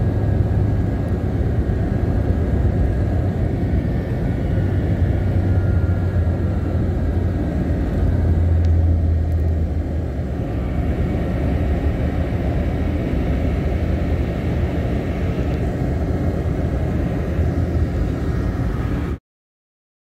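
Steady low rumble of a car driving along a road, engine and tyre noise heard from inside the cabin; it cuts off suddenly near the end.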